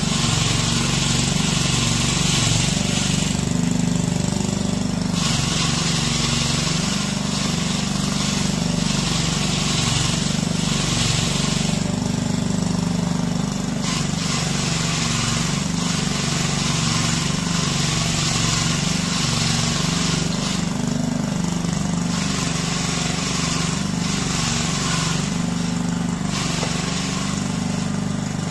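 Tielbürger walk-behind weed brush running steadily on its small engine, its rotating wire brush scraping weeds out of the joints between paving stones with a loud hiss. The scraping drops away for a second or two several times while the engine keeps running, as the brush is lifted off the stones.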